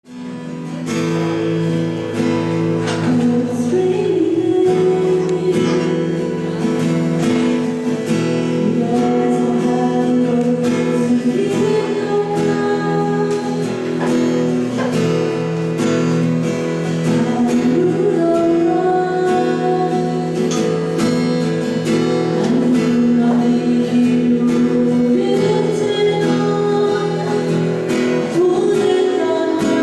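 Music: a song played on acoustic guitar with a melody line that sounds like singing, starting suddenly at the beginning.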